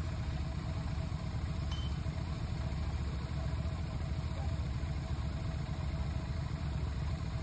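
Motorcycle engine idling steadily, an even low rumble.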